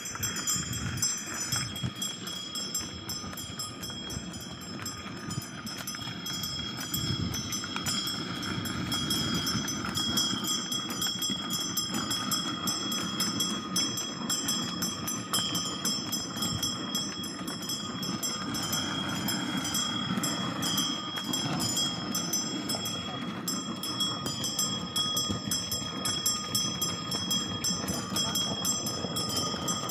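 Ox-drawn bullock cart rolling at a trot on a dirt road: a steady rattling rumble of the cart's wheels and wooden frame, with the quick clatter of the oxen's hooves.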